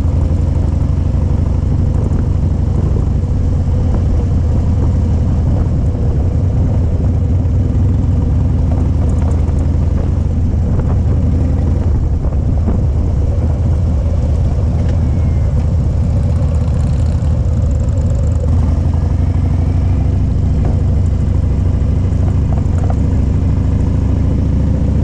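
Motorcycle engine running steadily at cruising speed, heard from the moving bike, with a strong low hum and steady wind and road noise. There are no big revs or gear changes.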